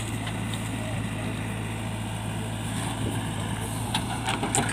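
JCB backhoe loader's diesel engine running steadily, with a few sharp clicks or knocks near the end.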